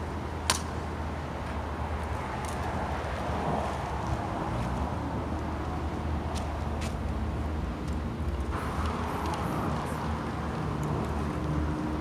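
Steady low engine hum and road traffic noise, with one sharp click about half a second in.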